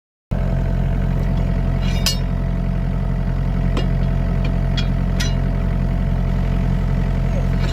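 Mini excavator engine running steadily, cutting in abruptly just after the start, with about five sharp metallic clinks scattered over it.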